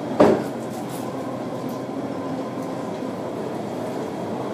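Steady, distant rumble of rail and city traffic heard from high above, with one short knock about a quarter second in.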